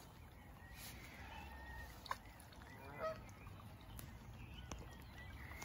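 Geese honking faintly, a few scattered calls with the clearest about three seconds in, over a low outdoor hiss. There are a couple of sharp clicks as well.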